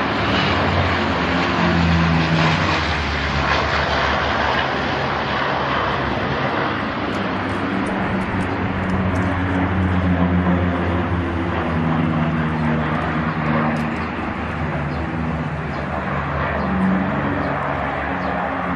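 Firefighting water-bomber planes flying overhead, their engines and propellers making a loud, steady drone.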